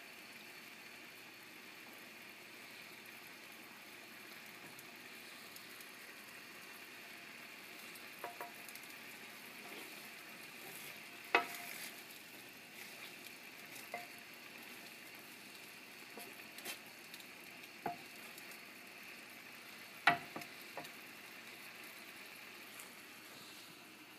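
Gravy of pan drippings thickened with cornstarch slurry simmering on the stove with a steady faint hiss, as the cornstarch cooks and thickens. A stirring utensil knocks against the pan now and then, in a handful of sharp clicks, the loudest about 11 and 20 seconds in.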